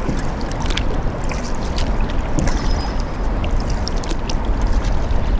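Kayak paddling on a river: water splashing and dripping off the paddle in many small, irregular splashes, over a steady low rumble.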